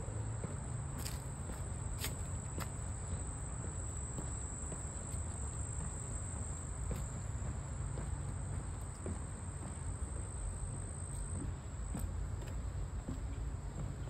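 Insects trilling in one steady high-pitched tone over a low rumble, with a few faint clicks in the first three seconds.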